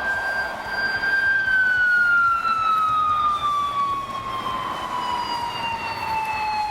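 Japanese police motorcycle's siren wailing: one long tone held at its top pitch for about a second and a half, then sliding slowly and steadily downward.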